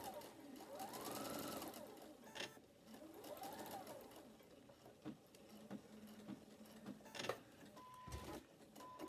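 Domestic sewing machine stitching in two short runs, its motor whirring up in pitch and back down each time, the second run fainter. A few clicks follow, and a short high beep near the end.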